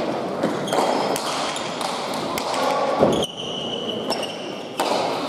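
Bare-hand pelota rally: sharp smacks of the hard ball off players' hands and the walls every second or so, with a heavier thud about three seconds in. Short high squeaks of shoes on the court floor are heard between the hits.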